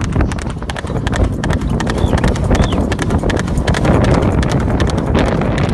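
Horse's hooves clip-clopping steadily on a dirt trail, with a low rumble of wind on the microphone underneath.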